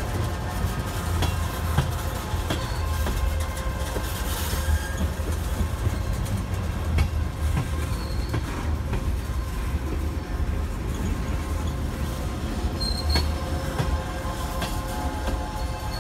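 Tank cars of a CSX freight train rolling past on the rails: a steady low rumble of steel wheels, with a thin squeal from the wheels held through the whole passage and scattered clicks and clanks.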